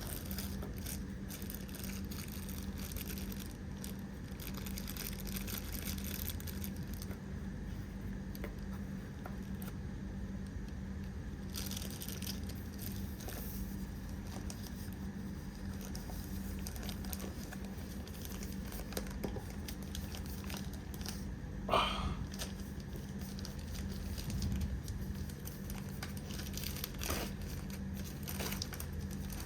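Keyboard packaging crinkling and rustling, with scattered light handling clicks, over a steady low hum. About three quarters of the way through there is one short, sharp squeak.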